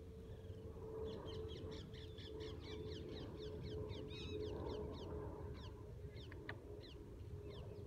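Faint bird calls: a rapid run of short, high, falling chirps, several a second, over low wind rumble and a faint steady hum.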